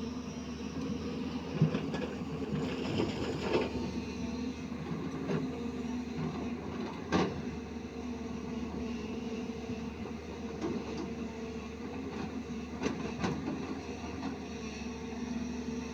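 Excavator's diesel engine running steadily, with scattered sharp knocks and clanks, the strongest about a second and a half and about seven seconds in.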